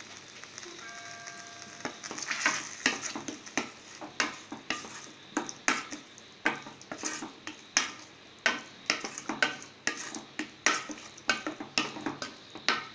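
Chicken pieces and onions sizzling in a stainless steel pan. From about two seconds in, a utensil stirs and scrapes the pan in quick strokes, about two a second, over the sizzle.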